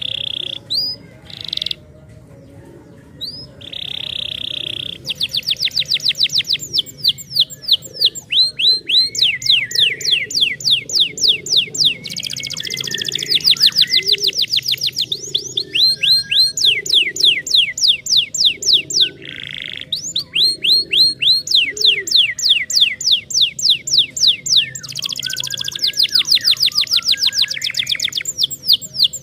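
Domestic canary singing: a few short buzzy calls, then from about five seconds in long rolling trills of rapid falling whistled notes, about ten a second, broken now and then by harsh buzzy notes.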